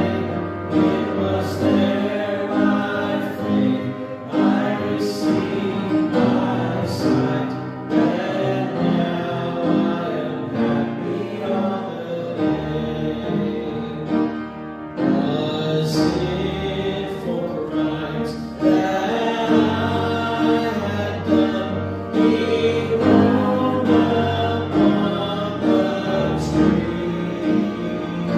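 Voices singing a hymn in held notes, with instrumental accompaniment carrying a steady bass line.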